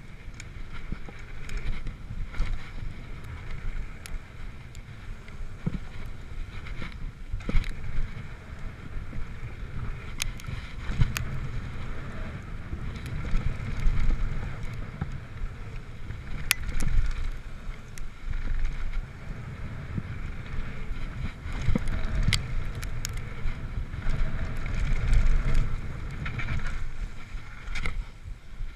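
Mountain bike rolling fast down a hardpacked dirt and gravel trail: a steady tyre rumble with wind on the microphone, and many sharp clacks and rattles from the bike over bumps.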